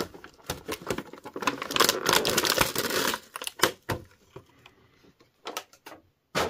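Thin clear plastic packaging tray crackling and clicking as it is bent and pulled away from an action figure. The crackling is densest for a second and a half or so near the middle, with scattered sharp clicks around it and a louder click near the end.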